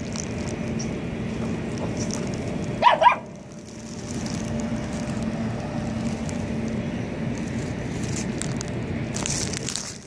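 A short, loud double animal call about three seconds in, over a steady low rumble.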